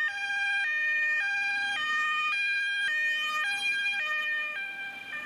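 German fire service truck's two-tone siren (Martinshorn) sounding as the truck drives past with blue lights on, alternating steadily between a higher and a lower note about every half second, growing fainter near the end.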